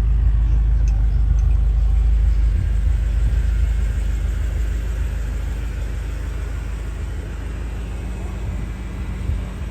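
BMW M5 F10's twin-turbo V8 and tyres giving a steady low rumble while the car is driven. It grows gradually quieter through the second half as the car eases off.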